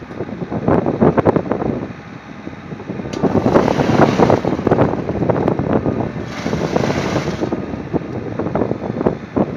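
Tractor-mounted almond tree shaker with an umbrella catching frame running, with two shaking bursts: one a little over three seconds in and one around six seconds in, each lasting about a second. During these, almonds shower down onto the canvas catcher. Wind buffets the microphone throughout.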